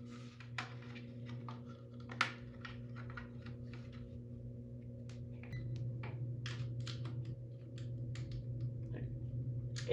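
Light plastic clicks and taps of hands handling a smoke alarm and its battery for a voltmeter test, scattered irregularly, over a steady low hum that shifts slightly about halfway through.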